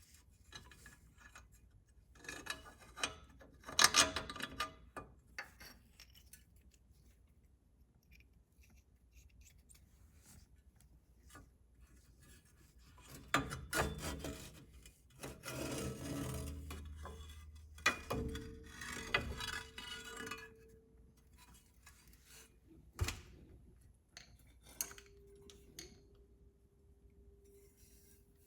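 Metal suspension parts and hand tools scraping, rubbing and clinking in irregular bursts, with one sharp metallic knock near the end.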